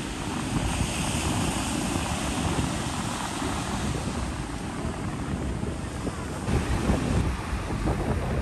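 Surf washing onto a sandy beach, with wind buffeting the microphone in a steady rumble.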